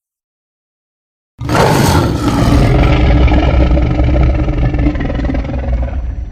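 Giganotosaurus roar sound effect: silence for about a second and a half, then a long, loud, deep roar starts suddenly and slowly fades.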